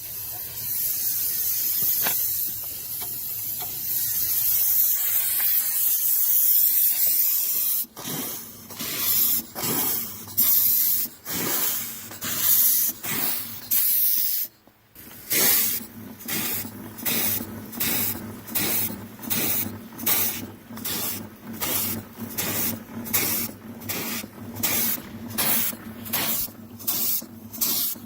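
Vertical steam engine on live steam: a steady hiss of steam for the first several seconds, then about eight seconds in the exhaust starts chuffing in sharp puffs. The puffs are uneven at first, and after a brief pause about halfway through they settle into a steady beat of about one and a half puffs a second as the engine runs.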